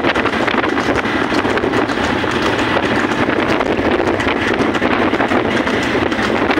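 Wind buffeting the microphone at speed, over a steady rattling clatter from a buffalo-drawn racing cart: hooves and cart wheels on the paved road.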